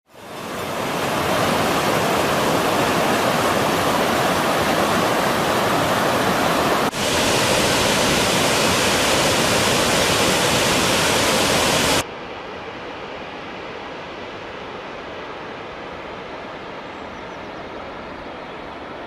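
Loud rush of a waterfall fading in, with a brief dip about seven seconds in. About twelve seconds in it cuts abruptly to a quieter, duller rush of falling water.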